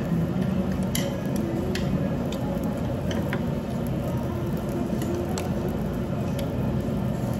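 Eating at the table: metal chopsticks clicking lightly against dishes a few times, with mouth and chewing noises, over a steady low hum of the room.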